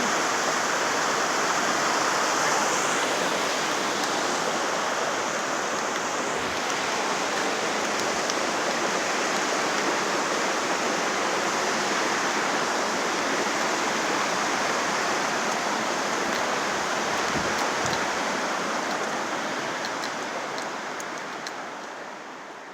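Creek water rushing steadily, fading out near the end.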